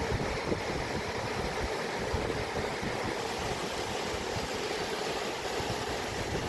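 Steady rush of flowing water, with an uneven low rumble underneath.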